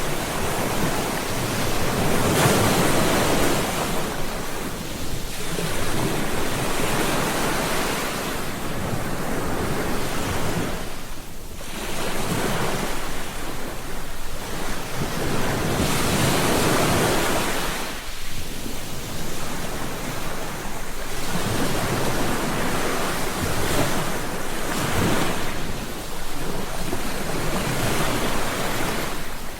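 Ocean surf: waves rolling in and breaking on a beach, swelling and falling back every few seconds with short lulls between.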